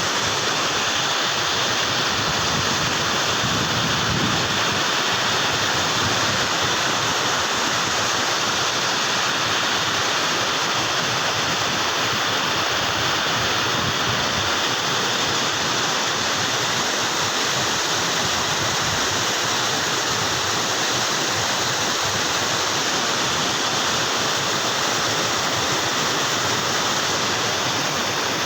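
River water rushing steadily over rocks or a weir, a constant, unbroken sound.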